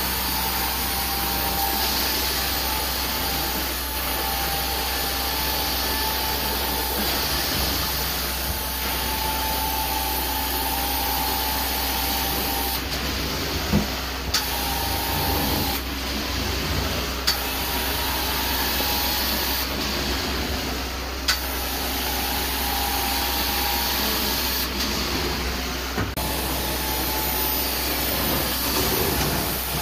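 Carpet-cleaning hot-water extraction tool under vacuum suction, fed by its hose and worked across the carpet, making a steady rushing machine noise. A few brief sharp clicks come in the second half.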